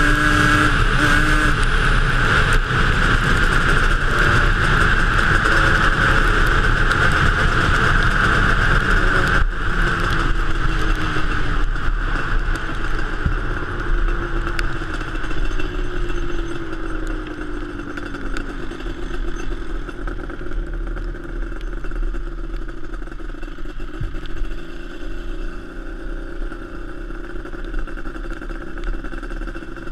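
Yamaha Banshee's twin-cylinder two-stroke engine running as the quad rides along. It holds a steady, loud note for about the first ten seconds, then the pitch slowly falls and the sound grows quieter as the quad slows.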